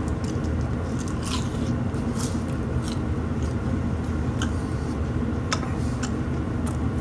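Crispy baked chicken skin being chewed with the mouth close to the microphone: irregular crunching crackles over a steady low hum.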